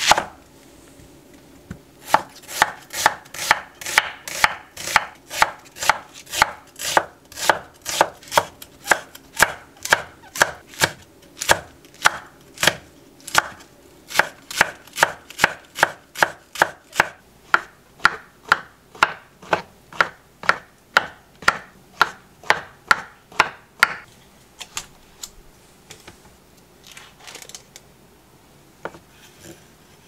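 Kitchen knife chopping vegetables (onion, green onion, green chili, shiitake mushrooms) on a wooden cutting board: one sharp cut at the start, then a steady run of knife strikes on the board at about two to three a second. Near the end the strikes stop and only fainter, scattered cuts follow.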